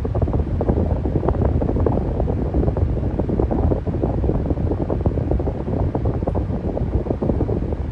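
Electric fan running steadily: an even, low rush of moving air with a fast flutter to it.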